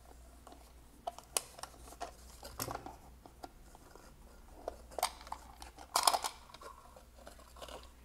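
Scattered plastic clicks and scrapes from hands handling a small black plastic security camera, with a metal key tip worked into its housing by a plugged-in cable. The loudest cluster of clicks comes about six seconds in.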